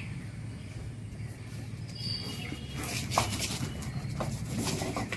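Light clicking and pattering of two German shepherds' paws and claws on concrete as they run off, starting about three seconds in. A brief high chirp sounds about two seconds in.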